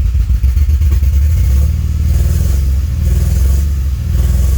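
DeLorean DMC-12's PRV V6 fuel-injected engine idling at or near operating temperature, its note rising and falling slightly.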